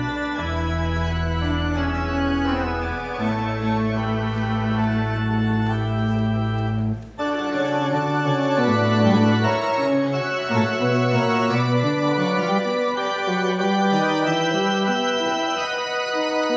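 Organ music: long sustained chords over a held low bass note for the first seven seconds or so, then after a brief break a livelier passage with the chords and melody changing every half second or so.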